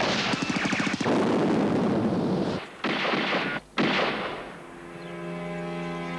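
Film-trailer soundtrack of gunfire: a rapid rattle of shots, then loud blasts broken by two abrupt cuts. About four and a half seconds in, held music chords take over.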